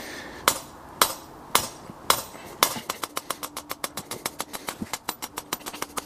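Hammer striking the top of an earth rod, driving it into the ground: sharp strikes about two a second, quickening to about four a second after about three seconds.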